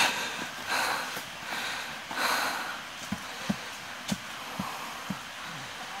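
Footsteps on a dry, leaf-littered dirt trail: three louder crunches in the first couple of seconds, then lighter steps about twice a second.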